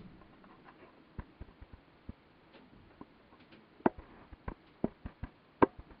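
A dozen or so sharp, irregular clicks and taps from a caged Gloster canary hen moving about, the loudest two about four and five and a half seconds in.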